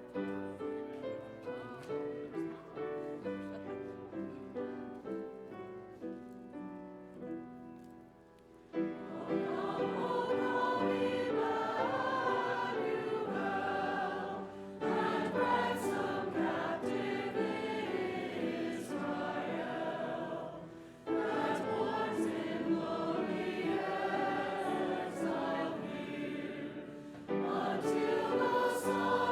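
Instrumental introduction of short, evenly played notes, then a choir singing a hymn with accompaniment from about nine seconds in, in phrases with short breaks between them.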